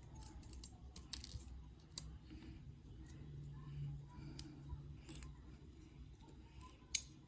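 Faint, scattered clicks and ticks of small metal lock pins and springs being handled and picked out of a padlock cylinder's pin chambers, with one sharper click near the end.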